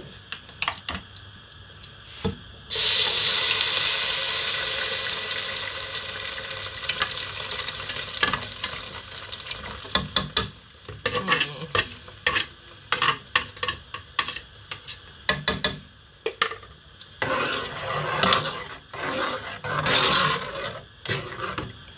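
Blended pepper mix hitting warm oil in a pot: a sudden sizzle about three seconds in that slowly dies down. Later a spoon stirs the sauce, with many short knocks and scrapes against the pot and a second rise of sizzling near the end.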